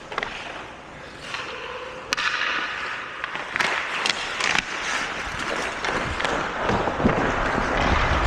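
Ice hockey play: skate blades scraping on the ice with sharp clacks of sticks and puck, a few clustered between three and a half and five seconds in. The scraping and knocking build louder toward the end.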